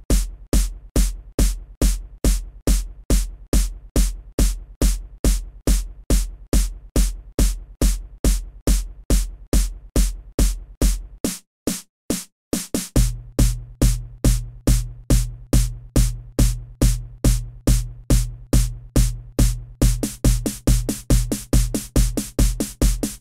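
Electronic dance remix intro: a drum-machine kick beating about twice a second. The beat drops out briefly around twelve seconds in, comes back with a steady bass note under it, and turns denser and faster near the end as it builds.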